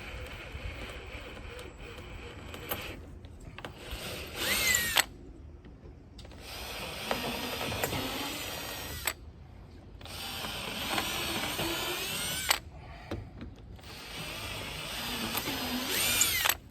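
Power drill drilling mounting holes into a pontoon boat's deck, in about four runs with short pauses between them. Near the end of some runs the pitch rises sharply as the drill speeds up.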